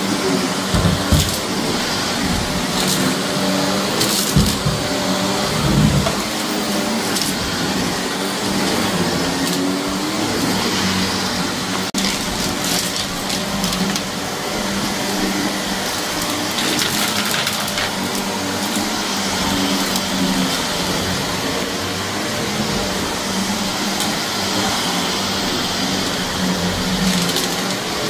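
Shark vacuum cleaner running steadily over carpet, its motor humming, with scattered crackling clicks of grit and debris being sucked up: the 'crunch'.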